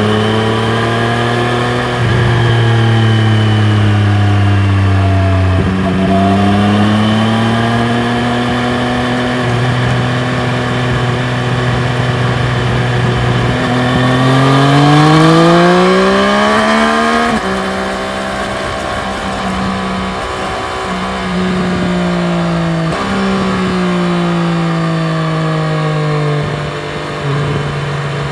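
Triumph Street Triple RS's inline three-cylinder engine under way, its pitch rising and falling with throttle and gear changes. About halfway through the revs climb for several seconds, then drop abruptly at a shift. Later the pitch eases down in steps.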